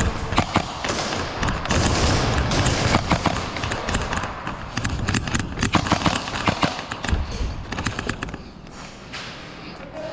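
Airsoft gunfire during indoor close-quarters play: many sharp, irregular cracks and knocks of shots and BB hits, coming in clusters and thinning out about eight seconds in.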